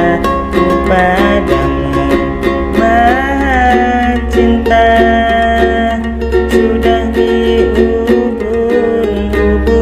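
A man singing a slow ballad to his own strummed ukulele, with long held notes over steady strumming.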